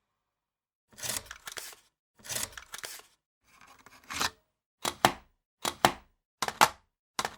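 Camcorder mechanism and handling noises: three short mechanical scraping bursts, then four sharp clicks, each a quick double, less than a second apart.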